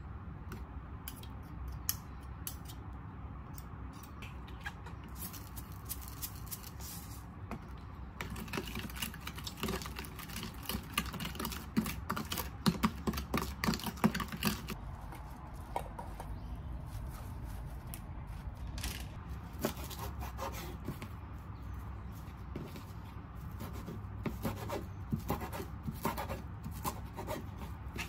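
Rubbing and scraping with scattered light clicks and knocks, busiest from about eight to fifteen seconds in.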